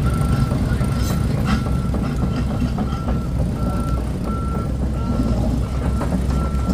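Heavy truck diesel engine running with a steady low rumble, while a reversing alarm beeps at a single pitch, about one and a half beeps a second.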